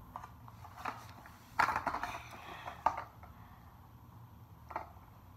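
Plastic-and-cardboard Hot Wheels blister pack being handled and turned over in the hand, crinkling and clicking. The loudest crackling comes about a second and a half to three seconds in, with a single click near the end.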